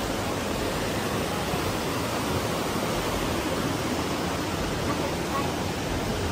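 Steady rushing of a waterfall, an even, unchanging noise.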